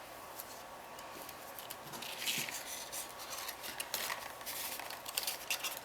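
Cut cardstock pieces being handled and pressed into place: a run of light rustles and taps that starts about two seconds in.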